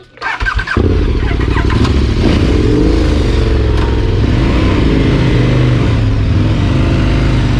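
KTM Adventure V-twin motorcycle engine pulling away from a stop at low speed, loud, its pitch rising and falling with the throttle. A short clatter comes just before the engine sound comes in, under a second in.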